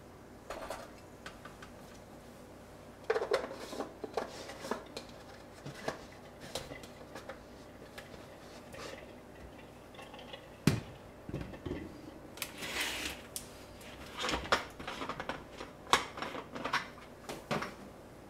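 Scattered clinks and knocks of kitchenware being handled: an enamel kettle set onto a tabletop stove's wire grill and a plastic thermos pot being moved and opened. The loudest knock comes about eleven seconds in.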